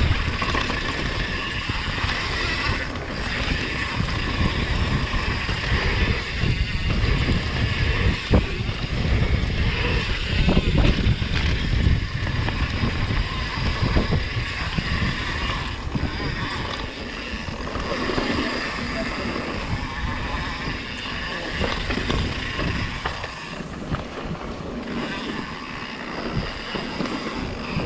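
Wind rushing over the microphone and a mountain bike rolling and rattling down a dirt trail, with sharp knocks from bumps.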